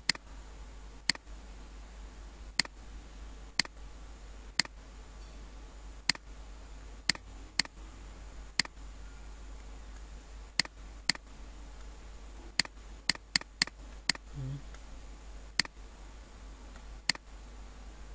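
Computer mouse button clicking: about eighteen sharp clicks at uneven intervals, several in quick succession a little past the middle, over a low steady hum.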